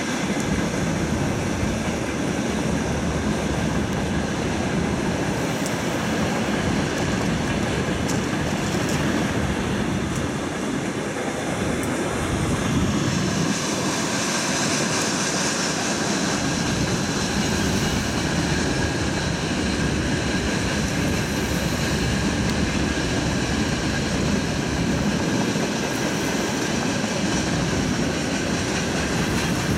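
Freight train wagons (tank cars and hopper cars) rolling past: a steady noise of steel wheels on rail.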